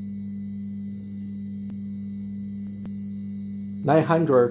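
Beckhoff stepper motor running at one revolution per second, giving a steady hum.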